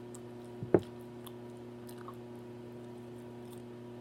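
A person chewing food close to the microphone, with faint scattered wet mouth clicks and one loud, brief sound under a second in.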